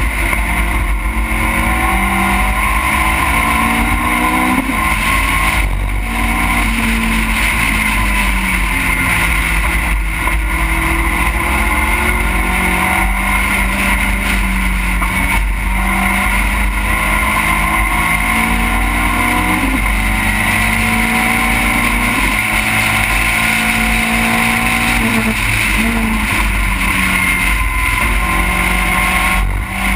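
Onboard sound of a small open-cockpit race car's engine under racing load. The note climbs and steps down every few seconds with gear changes through the corners, over heavy wind buffeting on the microphone.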